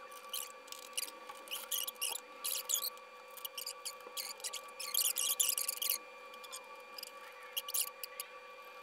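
Short metallic clicks and scraping of a screwdriver driving screws through a motherboard into the standoffs of a PC case, in clusters with the busiest stretch about five to six seconds in, over a faint steady hum.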